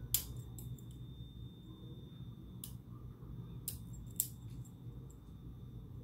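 Sharp, irregular metallic clicks from a flat steel pick tool being worked inside a six-pin brass Yale pin-tumbler cylinder, about half a dozen in all, the loudest right at the start and about four seconds in. A faint steady hum sits underneath.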